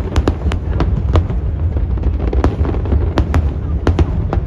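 Aerial fireworks shells bursting: about ten sharp bangs, unevenly spaced with a short lull around the middle, over a steady low rumble.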